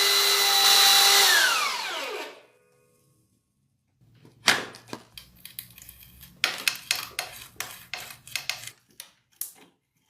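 A power tool's electric motor running with a steady high whine, then winding down in pitch and stopping about two seconds in. After a short quiet gap comes an irregular run of sharp clicks and taps.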